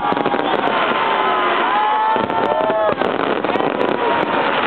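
Fireworks display: many glittering shells bursting together in a dense, continuous crackle, with a few gliding whistle-like tones over it about halfway through.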